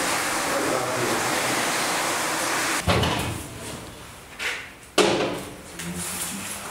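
Steady rushing noise, then two sharp metallic clunks about three and five seconds in as the hinged steel door of an electrical switchgear cabinet is handled and swung open.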